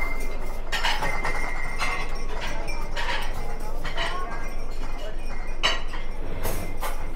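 Dishes, glasses and cutlery clinking irregularly in a busy dining area, over a steady background hubbub.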